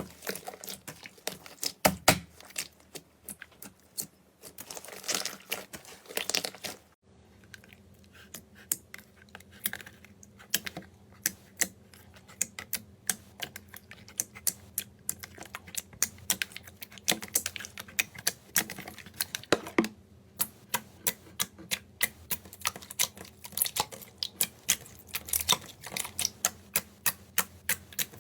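Slime being squeezed and poked by hand, giving rapid sharp clicks and pops of trapped air, several a second. A short quiet break comes about seven seconds in, after which the clicking goes on.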